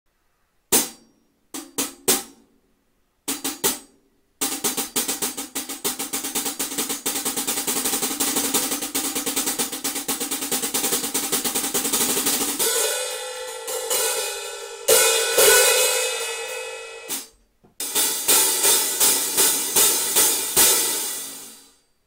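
Meinl BCS brass (copper-zinc) cymbals struck with drumsticks: a few single hits, then a fast, dense run of strokes, with the sound thinning out about halfway through. Two loud crash hits follow with ringing wash, then a run of accented strokes at about three a second that cuts off suddenly.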